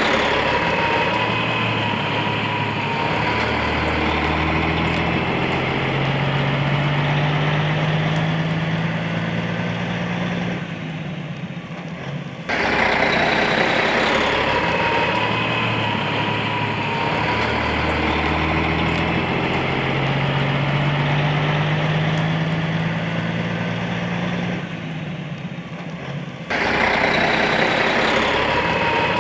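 A vehicle engine running over steady outdoor noise, its pitch climbing slowly for a few seconds and then settling. The same stretch of sound starts over twice with abrupt cuts.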